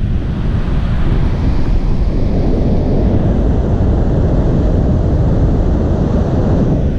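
Wind buffeting the camera's microphone as the paraglider flies, a loud, steady low rumble.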